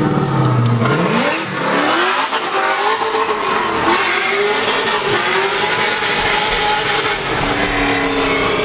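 Engine revving hard at high rpm: its pitch climbs steeply about a second in, then swings up and down as the throttle is worked.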